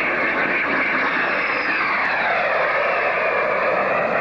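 Aircraft engines running loud and steady as the plane passes low overhead, with a high whine that falls in pitch as it goes by.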